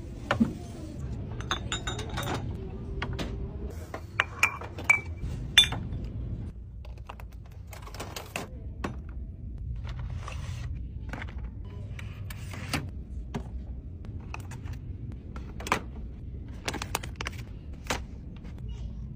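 Shopping items being handled and set down in a red plastic shopping cart: irregular sharp clicks and knocks of boxes, bottles and a glass jar against the cart's perforated plastic, with packaging rustle, the loudest knocks about four to six seconds in, over a low steady background hum.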